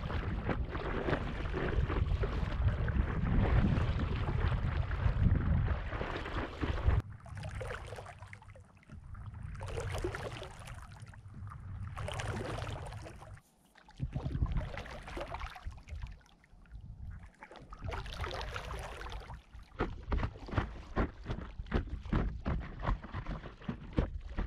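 Lake water rushing and splashing around an inflatable stand-up paddleboard as it is paddled, loud and rushing for the first several seconds, then rising and falling with the paddle strokes every two to three seconds. Near the end come quick, short splashes and lapping.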